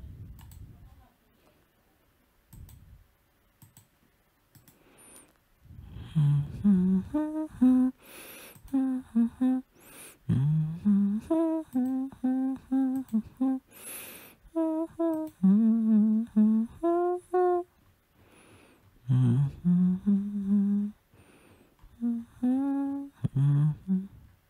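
A person humming a tune, holding a string of separate notes in short phrases, after a few faint clicks at the start.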